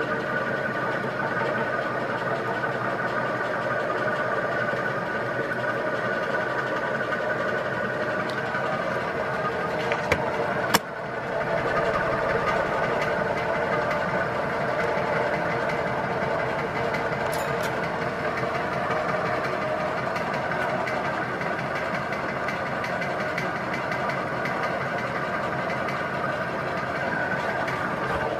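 1986 Palco-built Banvil Envirofan Gold Line 36-inch industrial ceiling fan running steadily, its motor giving a steady hum with several steady tones over the whoosh of the caged blades. A sharp click about eleven seconds in, after which the sound is slightly louder.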